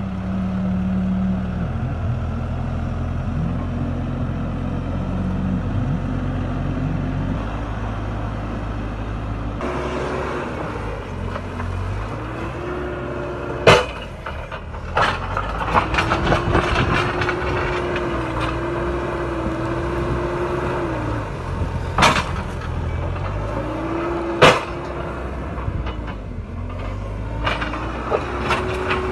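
A heavy vehicle's engine running steadily, with three sharp knocks over it in the second half.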